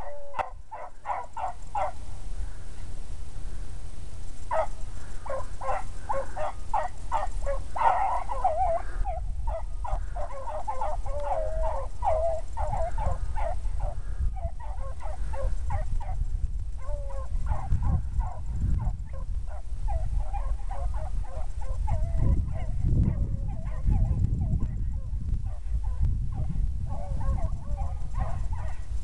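A pack of hounds baying in a steady chorus of repeated calls as they run a rabbit's scent trail, with a low rumble underneath.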